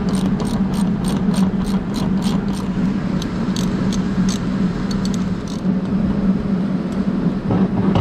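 Socket ratchet clicking as the motor's mounting screws are backed out: an even run of sharp clicks, about four a second, for roughly the first three seconds, then scattered single clicks until about halfway through. Under it all runs a steady low machinery hum.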